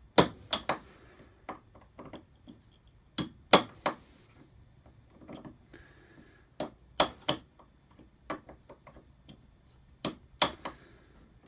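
Small ball-peen hammer tapping a pin punch to drive the pins out of a Keymark small-format interchangeable lock core: sharp metal-on-metal taps in groups of two or three, a few seconds apart.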